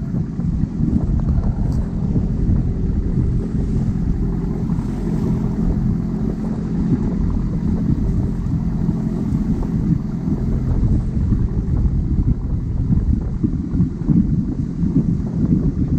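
A wooden boat's engine running steadily under way, with wind buffeting the microphone and water rushing and splashing along the hull.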